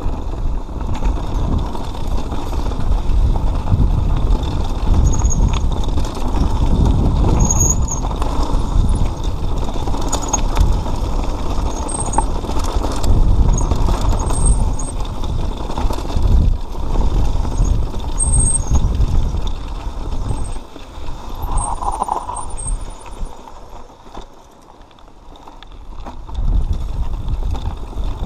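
Mountain bike riding over a rocky dirt trail: heavy wind buffeting on the microphone, with tyre crunch and rattling of the bike over stones. The noise drops away briefly late on, then comes back.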